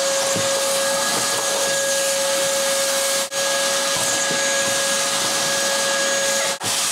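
Shop vacuum running steadily with a constant whine, its hose sucking up dry leaves and debris from a boat's wooden floor. The sound breaks off for an instant twice.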